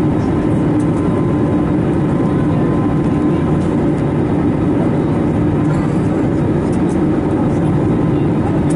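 Steady in-flight cabin noise of an Airbus A321neo heard from a passenger seat: the even rush of airflow and its CFM LEAP-1A turbofans, with a steady low drone underneath.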